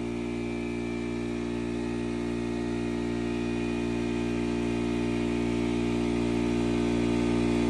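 Air compressor motor running steadily: a constant low hum that grows slightly louder.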